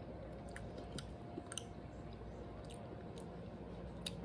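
Faint chewing of cooked chitterlings (pork intestines), with a few soft clicks scattered through from a fork against a glass bowl.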